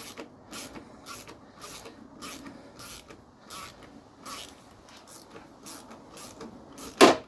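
Hand ratchet with an E10 Torx socket being worked back and forth on the motor mount fasteners, a short burst of ratchet clicking about twice a second. A sharp metallic clank near the end, the loudest thing.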